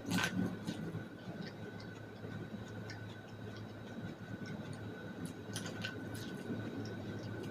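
Close-up mukbang eating sounds: biting into boiled corn kernels and chewing, with a sharper bite right at the start and scattered small wet mouth clicks, more of them about six seconds in. A steady low hum runs underneath.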